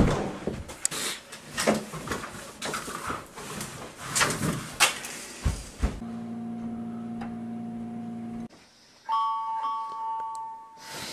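Irregular rustling and bumping noises for about six seconds, then a steady low buzzing tone for about two and a half seconds. Near the end comes an electronic phone ring, two steady tones sounding together, stopping and starting again.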